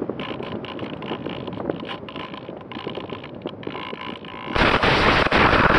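Easy Star 2 foam RC plane skidding across grass on landing, heard through its onboard camera: a rough, crackly rustling and scraping that turns much louder for the last second or so.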